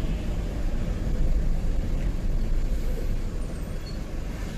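Tata 1512 truck's diesel engine running with a steady low rumble, heard from inside the cab.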